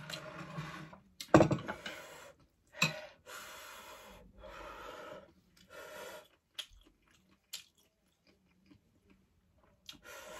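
A person chewing and eating noodle soup close to the microphone: a string of short, noisy mouth sounds with one or two sharper clicks, thinning out to a few faint clicks over the last few seconds.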